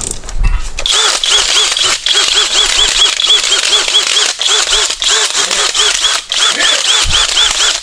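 Power drill drilling out steel rivets, starting about a second in: steady grinding with a whine that wavers rapidly up and down as the bit cuts.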